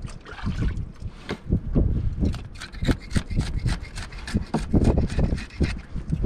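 Knife scraping scales off a fresh fish in quick, irregular strokes, several a second.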